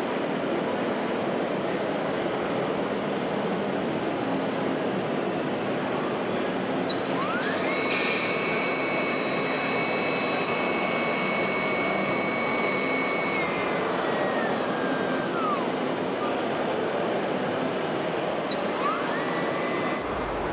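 Radio-controlled model truck running: a motor whine rises about seven seconds in, holds steady for several seconds and falls away, then rises again near the end, over a steady rushing noise.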